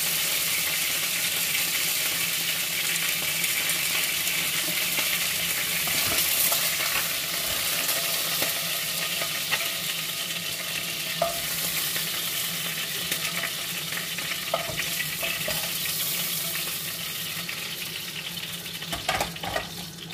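Chicken pieces sizzling as they fry in olive oil in a pot, the sizzle slowly fading toward the end, with a few light clicks of metal tongs against the pot.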